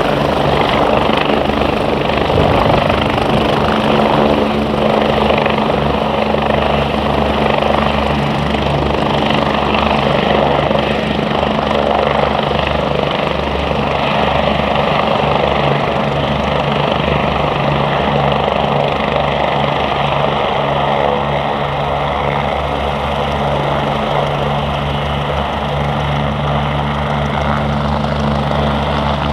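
BK 117 twin-turbine helicopters flying in formation, their rotors and engines making a steady, loud, continuous drone.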